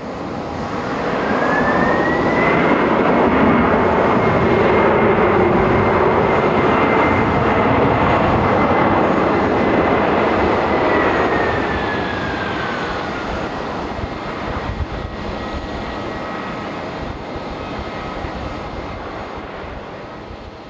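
Boeing 767 twin jet engines. The engine noise swells over the first couple of seconds as a high whine climbs in pitch, the sign of the engines spooling up. It holds steady and loud, then from about eleven seconds the whine slides down and the noise dies away.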